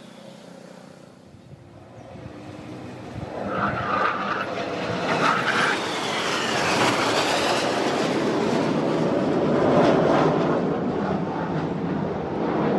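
Jet engines of Sukhoi fighter jets flying past, a roar that builds out of faint background noise about two seconds in and stays loud, with whines gliding in pitch as they pass.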